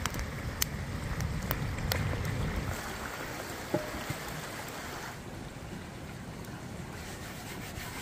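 A stream running, with wind rumbling on the microphone, and a few sharp crackles from a wood campfire in the first two seconds. A single short knock comes a little before the middle, and the sound goes quieter and thinner for the second half.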